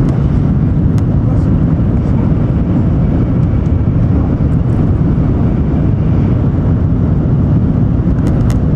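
Cabin noise inside an N700 series Shinkansen running at about 300 km/h: a loud, steady low rumble of wheels, track and air, with a few faint clicks.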